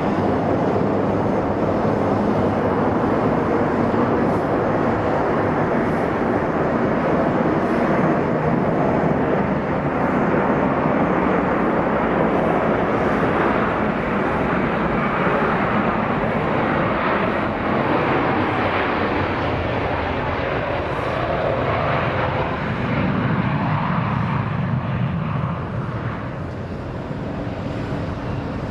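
Airbus A321 twin jet engines at takeoff thrust through the takeoff roll, a loud steady rushing roar that fades a little near the end as the airliner lifts off.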